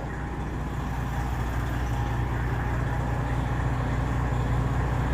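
Diesel semi-truck engine idling with a steady low hum that grows slightly louder.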